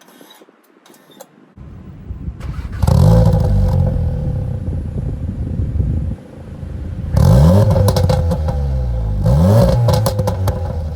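2019 Audi S3 8V's 2.0-litre turbocharged four-cylinder, breathing through a custom valved performance exhaust, running loud and being revved. It surges up at about three seconds, then gives two sharp rev blips near the end, the pitch rising and falling each time.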